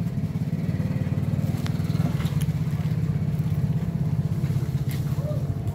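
A small engine running steadily, a low rapid drone, with a few light clicks over it.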